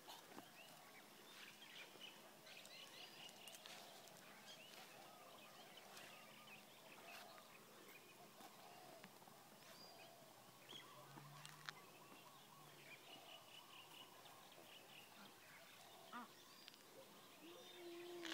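Near silence: faint outdoor ambience with scattered distant bird chirps, and a short pitched call near the end.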